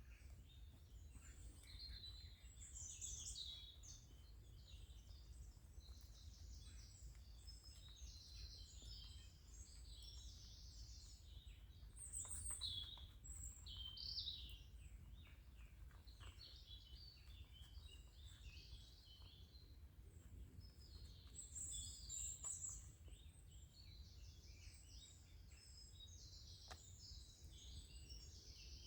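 Faint songbirds chirping and trilling throughout, over a steady low rumble, with a few faint clicks.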